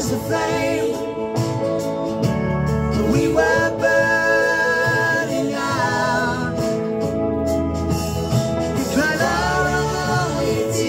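Folk-pop song: a male voice sings long wordless held notes, each sliding up into pitch, over a steady band accompaniment.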